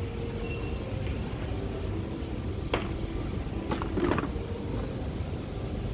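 Steady low background hum with a few light clicks of boxed toy packaging being handled on a shelf: one about three seconds in, and a couple close together near four seconds.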